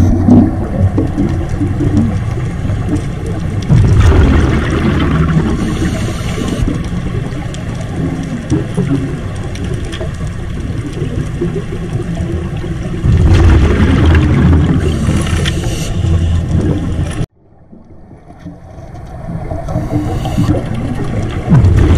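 Underwater scuba breathing through a demand regulator: hissing inhalations and rumbling bubble exhalations come in surges several seconds apart over a steady low underwater rumble. The sound drops out abruptly about three-quarters of the way through and fades back in.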